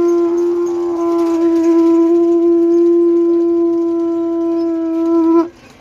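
A conch shell blown in one long, loud held note that wavers briefly about a second in and cuts off sharply about five and a half seconds in.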